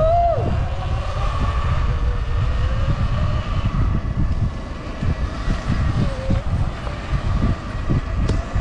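Sur-Ron electric dirt bike's motor whining while riding, its pitch sweeping up and back down in the first half second and then wavering with the throttle, over heavy wind rumble on the microphone.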